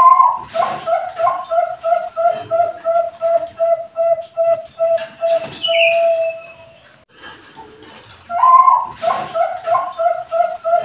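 Perkutut bangkok (Thai-bred zebra dove) cooing its song: a loud opening note, then a quick run of short, even coos ending in a longer held note. About eight seconds in, a second phrase starts the same way.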